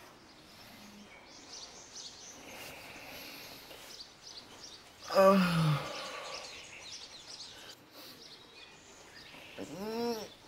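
A man yawning as he wakes. There is one long, loud yawn falling in pitch about halfway through, and a shorter groan that rises and falls near the end. Faint bird chirps sound in the quiet between.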